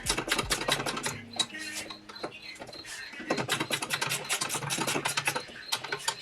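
Ratchet wrench clicking rapidly as it turns out the T30 Torx bolts that hold the hood latch, metal clicks coming in quick runs.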